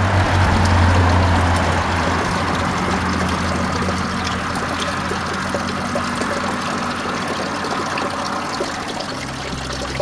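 Water running steadily from a metal spout into a stone fountain trough, a continuous splashing trickle.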